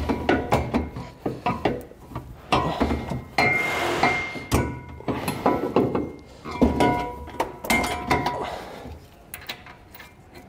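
Repeated metal knocks and clinks, some ringing briefly, as a steel Roadmaster base plate is worked into position against a pickup truck's frame and fastened to a stud. The knocking dies down near the end.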